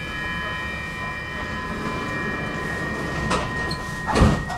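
Inside a Stockholm metro car standing at the platform: a steady electrical whine of several high tones over a low rumble. A click comes about three seconds in, then a heavy thump just after four seconds in, the loudest moment.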